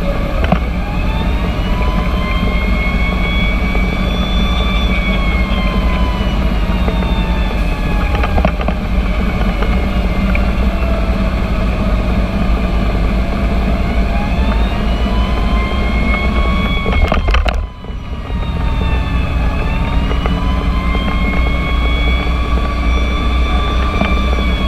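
Fire engine's siren wailing in slow rising and falling sweeps over the steady low rumble of the truck's engine and road noise while running to an emergency call. The sound briefly drops away about three-quarters of the way through.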